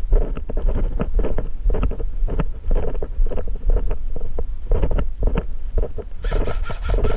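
Footsteps and gear knocking about three times a second as an airsoft player moves, over wind rumble on a body-worn camera microphone. About six seconds in comes a rapid burst of about a second and a half from an airsoft rifle on full auto.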